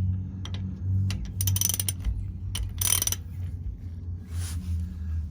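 Hand socket ratchet clicking in short, uneven runs as it turns the differential drain plug with an H14 hex socket, over a steady low hum.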